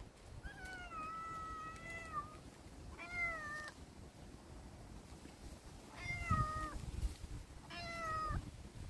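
A domestic cat meowing four times: one long drawn-out meow about half a second in, then three shorter meows, each falling slightly in pitch at the end.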